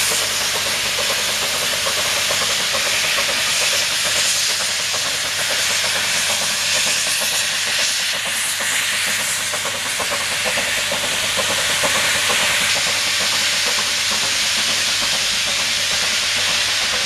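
Nilgiri Mountain Railway X-class oil-fired steam rack locomotive running past and pulling away up the line, giving a steady loud hiss of steam with a low hum beneath it.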